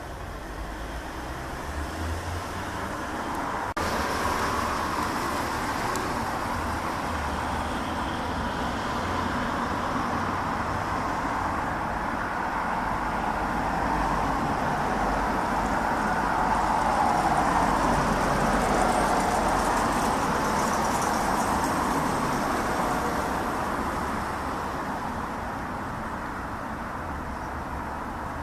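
Boeing 777-200ER airliner passing high overhead, its jet noise heard from the ground as a broad distant rumble that slowly swells and then fades, with a single click about four seconds in.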